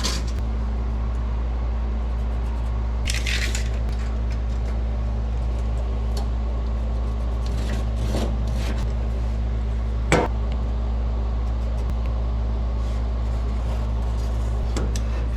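Steady low machine hum in a workshop, with a few light clinks and knocks of metal parts being handled and a brief hiss about 3 seconds in.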